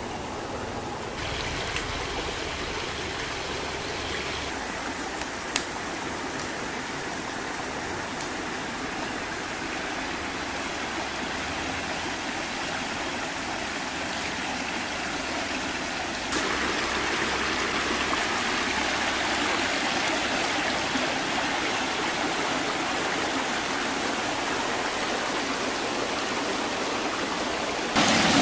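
Shallow stream running over stones and small rapids, a steady rushing of water that steps up louder about halfway through. Two brief clicks sound in the first few seconds.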